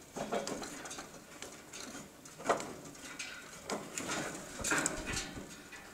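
Irregular knocks, clanks and scrapes of shoes and hands on the rungs of a rusty steel ladder during a climb down, the loudest knock about two and a half seconds in.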